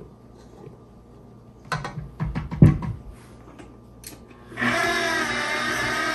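A few sharp knocks of a silicone spatula against the steel bowl of a KitchenAid Professional stand mixer. About four and a half seconds in, the mixer's motor starts and runs steadily, its flat beater mixing flour into the cookie batter.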